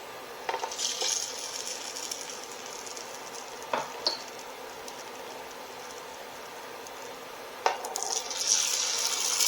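Eggs cracked into a skillet of hot olive oil: a few sharp cracks and clicks, each egg hitting the oil with a hiss of sizzling, the loudest sizzle starting near the end.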